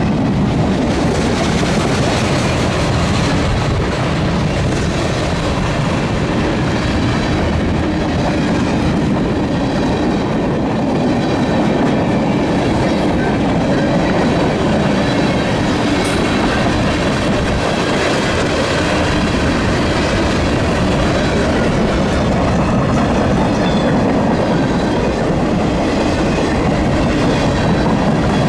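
Freight cars of a CSX mixed freight train rolling past, a loud steady rumble of steel wheels on rail.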